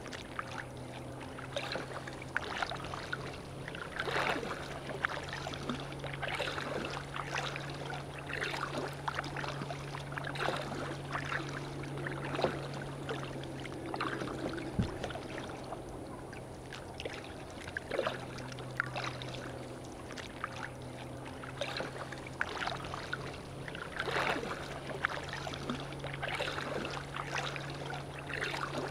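Kayak paddle strokes dipping and splashing in the water at a regular pace, one every second or two, with water lapping at the hull. A steady low hum runs underneath.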